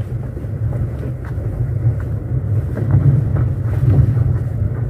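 Car driving slowly on a rough, wet road, heard from inside the cabin: a steady low rumble of engine and tyres.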